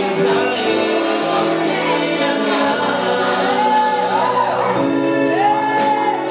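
Live gospel praise-and-worship music: a group of singers with a live band, voices holding long notes and sliding through melodic runs.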